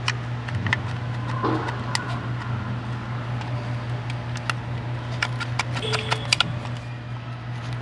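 A steady low machine hum, with many scattered light clicks and rattles over it.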